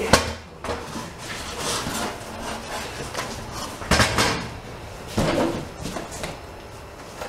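Cardboard packing rustling and scraping as an aluminium air bumper jack is lifted out of its shipping box and stripped of its packaging. A sharp knock comes right at the start, and two more knocks come about four and about five seconds in as the jack is handled and set down.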